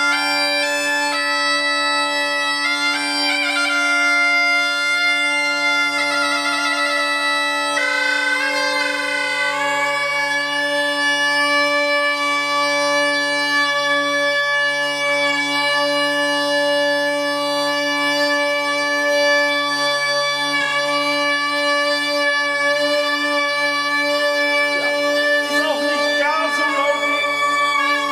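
Bagpipe playing: a melody on the chanter over two steady drones. In the last few seconds the notes waver and slide.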